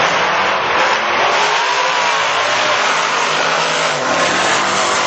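Drag-racing car engine at full throttle accelerating down the strip, a loud, steady noisy roar with its pitch gliding up and then down.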